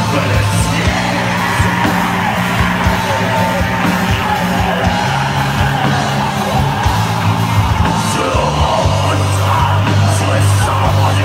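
Symphonic black metal band playing live, heard from within the audience: distorted guitars and drums over held low notes that shift every couple of seconds, with screamed vocals.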